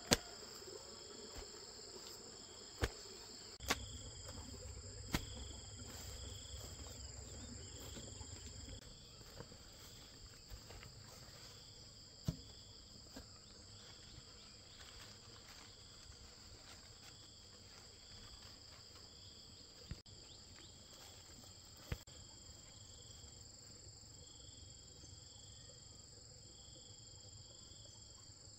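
Insects chirring steadily outdoors at a high pitch, with a pulsing call repeating every second or two. A few sharp knocks break in, the loudest at the very start, and a low rumble runs through the first nine seconds or so.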